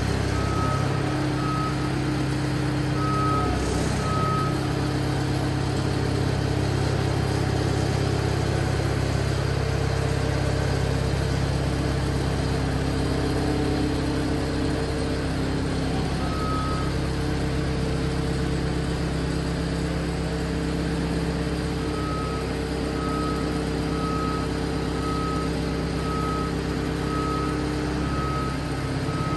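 Engine of a large hydraulic boat-moving trailer running steadily. A backup warning beeper sounds in scattered beeps, then in a regular run of about one and a half beeps a second near the end.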